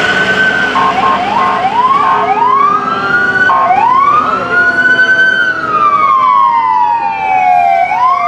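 Emergency vehicle sirens from passing fire apparatus, several overlapping: quick repeated rising sweeps for the first couple of seconds, then a slow wail that climbs, falls over about four seconds and starts climbing again near the end.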